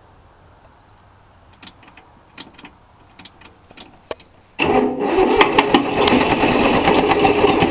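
A few light clicks, then about four and a half seconds in the starter motor begins cranking a three-cylinder Yanmar diesel, which keeps turning over without catching: the fuel lines have not been bled of air. The owner suspects the old starter is wearing out.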